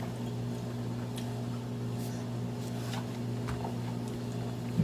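Steady low hum of room tone, with a few faint, scattered clicks and ticks from small handling noises.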